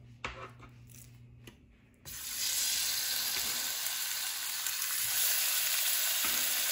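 Raw chicken breasts hitting hot olive oil in a skillet: a steady sizzle starts suddenly about two seconds in and keeps going as the meat sears. A few faint clicks of handling come before it.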